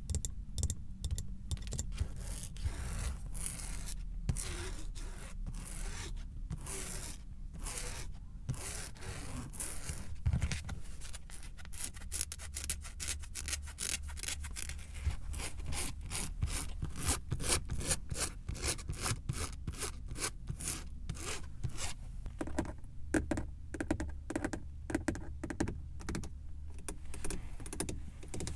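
Fingers rapidly tapping and scratching on a car's surfaces in a dense run of quick, sharp clicks and rubs.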